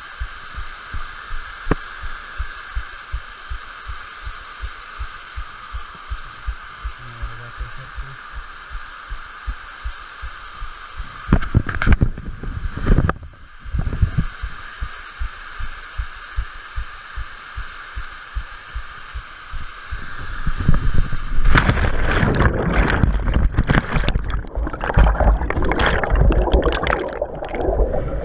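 A steady hiss with soft low thumps about twice a second, then, about 21 seconds in, a camera carried by a cliff jumper plunges into a muddy pool: a splash followed by muffled underwater churning and gurgling. A brief louder burst of noise comes about halfway through.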